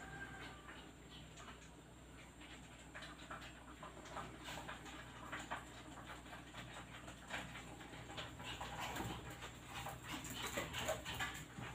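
Shih Tzu puppy playing by itself on a tiled floor: faint scattered taps and scrabbles of its claws and toy, with a few short whimpers near the end.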